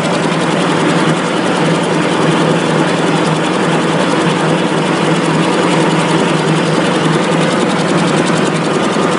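An 8-line V-fold facial tissue interfolding machine running: a loud, steady mechanical din with a constant hum and a fast, even clatter from its moving parts.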